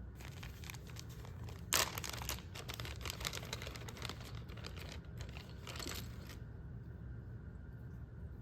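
Packaging crinkling and rustling as it is handled and unwrapped, with a sharper crackle about two seconds in; it stops about two-thirds of the way through.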